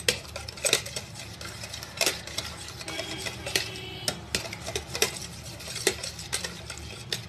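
Metal wire whisk beating two raw eggs in a plastic bowl: irregular quick clicks and taps as the wires strike the bowl.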